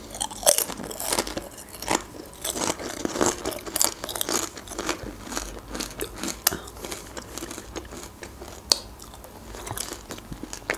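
A person chewing crunchy fried snack food, with many irregular crisp crunches and bites.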